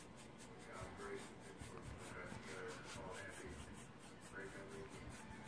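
Faint rubbing of a paintbrush spreading gesso across the drawing.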